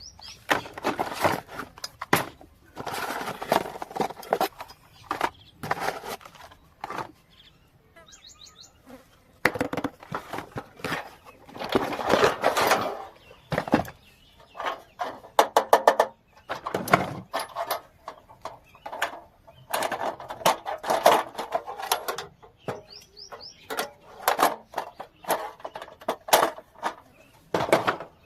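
Unboxing of a miniature toy kitchen set: irregular bursts of packaging rustling and crinkling, broken by sharp clicks and a couple of brief, high, small clinks.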